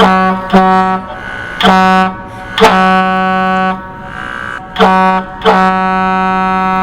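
The Tugger, a battery-powered portable air horn, sounding a series of loud, steady single-pitch blasts: three short ones, a longer one of about a second, then a short blast and a long one held on past the end.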